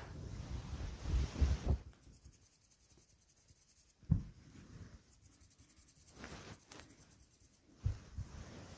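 Soft rubbing and rustling noise, loudest in the first two seconds, with a sharp low knock about four seconds in and another near the end.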